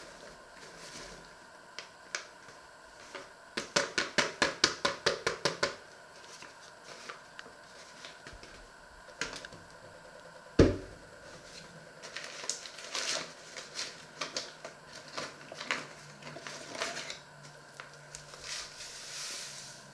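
Flour being added to a stainless steel bowl on a kitchen scale: a quick run of about a dozen light taps, then a single sharp knock about halfway through, followed by scattered rustling and soft knocks.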